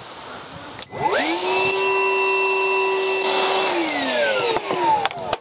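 Milwaukee wet/dry shop vacuum switched on about a second in: its motor whines up to speed, runs steadily for about two and a half seconds, then winds down with a falling whine.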